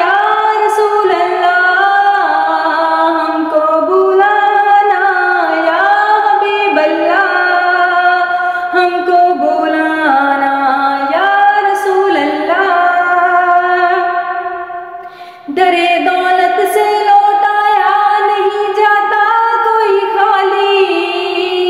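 A woman singing a naat a cappella, one unaccompanied voice in long ornamented phrases whose pitch bends from note to note. There is a short break about fifteen seconds in, then the singing picks up again.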